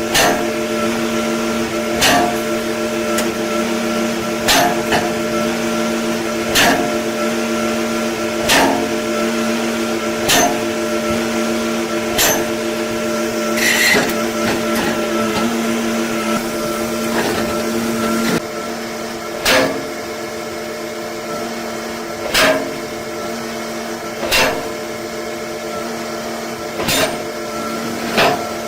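A machine running with a steady hum, broken by a sharp knock or clack roughly every two to three seconds.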